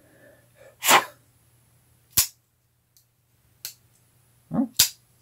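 Artisan Cutlery Ahab liner-lock folding knife being opened and closed, giving a handful of sharp clicks a second or so apart, with two close together near the end. The blade is being worked on its pivot, which may have a little grit in it.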